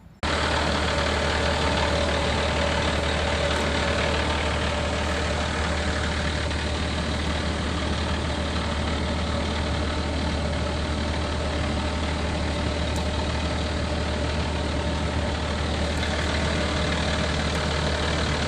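Excavator's diesel engine running steadily at an even level, with a deep steady low hum under a broad mechanical noise.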